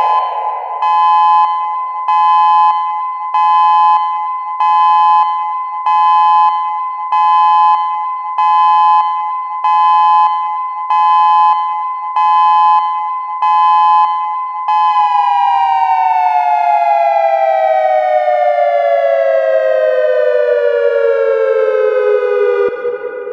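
Synthesized Federal Signal Modulator outdoor warning siren with UV controller in dual tone, sounding its Pulse Steady signal: two steady tones that pulse in loudness about once a second. Near the middle the tones hold unbroken and then wind down in a slow falling glide over about eight seconds.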